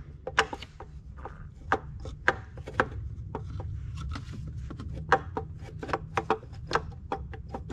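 Scattered light clicks and knocks of parts being handled in an engine bay, as a gloved hand works at the water pump and thermostat housing and an inspection mirror is moved beside it, over a steady low hum.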